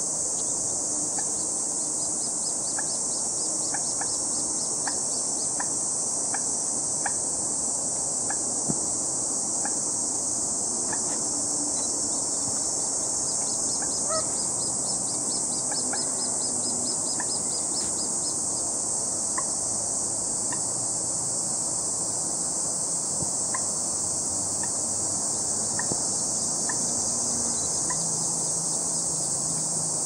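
Common moorhen giving short, sharp calls every second or so, over a steady high shrilling of insects. Twice a run of rapid ticks joins in, near the start and around the middle.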